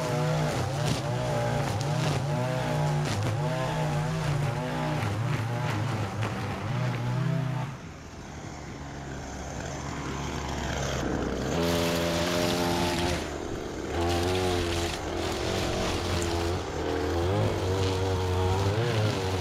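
Gas string trimmer engine running under load, its pitch rising and falling as it cuts grass. About eight seconds in it drops to a quieter idle for a few seconds, then revs back up and carries on cutting.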